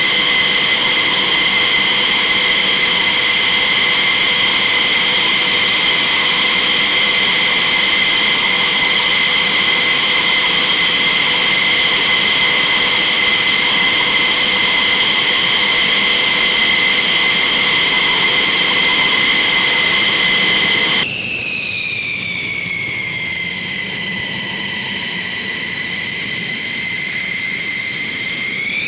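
Fighter jet engine running on the ground, a loud, steady high-pitched turbine whine. About two-thirds of the way through, it cuts to a quieter jet whine that falls slightly in pitch, holds steady, and begins to rise at the very end.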